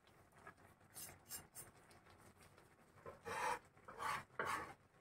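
Faint rubbing and scraping from a plastic-gloved hand scattering chopped coriander over okra in a stainless steel pan. A few light rustles come early, then three louder scrapes between about three and four and a half seconds in.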